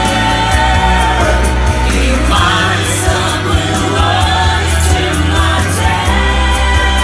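Pop song: a backing track with a steady bass line and sung, choir-like vocals.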